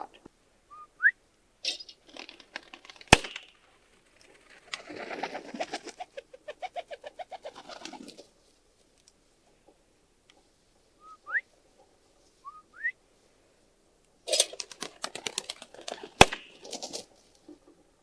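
Pigeon wings flapping in two spells of rapid beats, and two sharp bangs, the first about 3 s in and the loudest, the second about 16 s in during the second spell of flapping: birds thrown from a remote bird launcher and a gun fired for steady-to-wing-and-shot training. A few short rising whistle-like chirps come about a second in and again twice near the middle.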